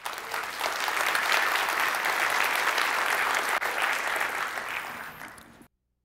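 Audience applauding, dying down a little before cutting off abruptly near the end.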